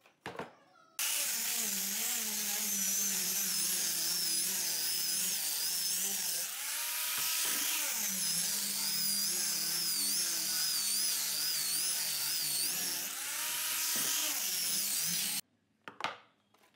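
Hand-held electric sander with a round sanding disc running against a rough wood board, a steady whine that wavers in pitch. It starts about a second in, its pitch dips and recovers twice, and it stops shortly before the end; brief knocks come just before it starts and just after it stops.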